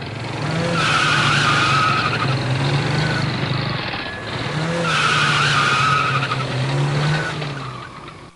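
Car engine running with a tyre squeal, in two nearly identical swells about four seconds apart, fading out near the end.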